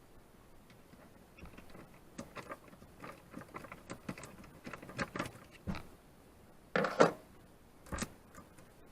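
Hand tool clicking and knocking against metal staples as they are pried out of an RV ceiling panel, with a sharp clunk about seven seconds in and another a second later.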